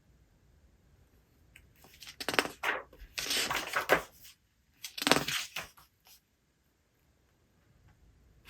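Paper pages of a book being turned and handled: three dry rustling swishes, about two, three and five seconds in.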